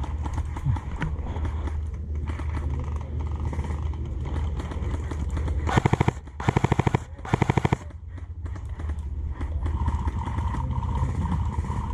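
Airsoft electric gun firing three short full-auto bursts in quick succession, each a rapid even rattle of shots.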